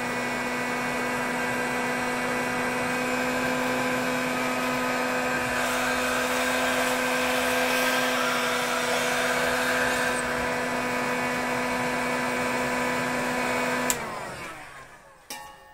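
Handheld heat gun running at full blast, a steady fan-motor hum with rushing air, warming a liquid-nitrogen-cooled pot. It is switched off with a sharp click about a second and a half before the end and dies away, followed by another click.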